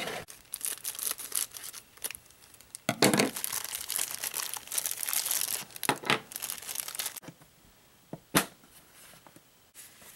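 Clear plastic packaging bag crinkling and rustling as it is handled and opened, in two main stretches, with one sharp tap about eight seconds in.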